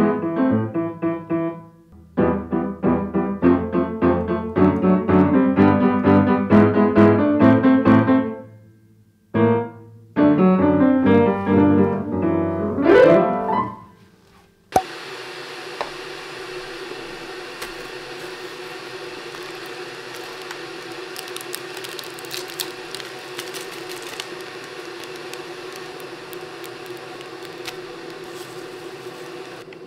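Upright piano played by hand: chords and runs with short pauses and a quick rising run, stopping about halfway through. Then an abrupt change to a steady, much quieter background hum with a few faint rustles.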